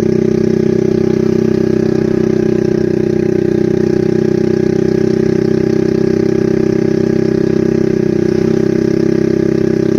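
An engine running at a steady speed, with an even drone that barely changes.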